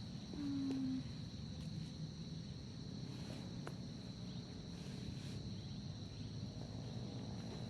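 Forest insects, crickets or similar, keeping up a steady high-pitched drone. A short, slightly falling low tone lasting about half a second sounds near the start, the loudest thing here, with a few faint clicks later.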